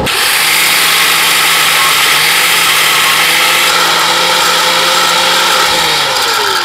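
DeWalt angle grinder starting abruptly and grinding the stop of a 6010 root-pass weld on a steel plate, feathering the end down thin so the restart blends in. It gives a steady whine over a loud hiss, and near the end its pitch sinks.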